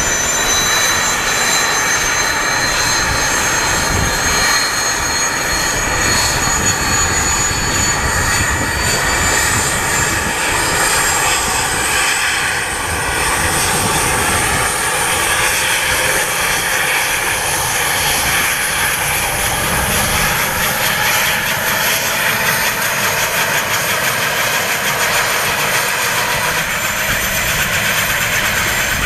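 Airbus Super Puma helicopter's twin turboshaft engines starting up, a loud steady turbine noise with a high whine that slowly rises in pitch as the main rotor begins to turn.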